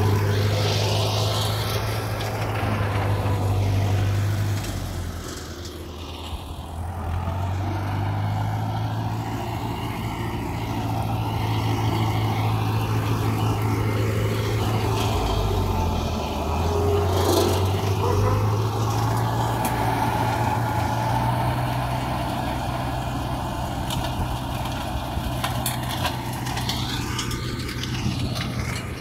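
Universal 640V tractor's diesel engine running steadily under load while driving a flail mower, its note sagging briefly twice.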